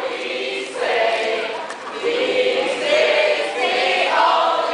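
A group of young people singing together in unison, a chant-like song in short repeated phrases.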